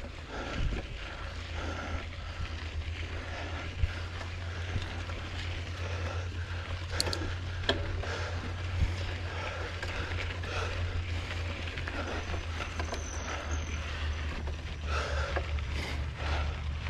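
Trek Marlin 6 mountain bike being ridden on a dirt trail, heard from a camera on the rider: a steady low rumble with tyre and trail noise. Scattered sharp clicks and knocks come from the bike rattling over the ground.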